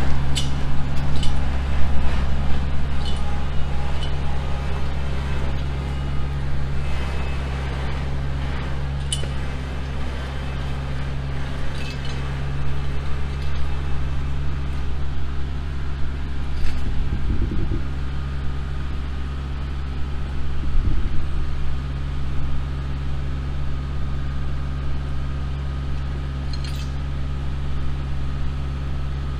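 Compact tractor's diesel engine running at a steady speed, with scattered light metallic clinks and knocks over it.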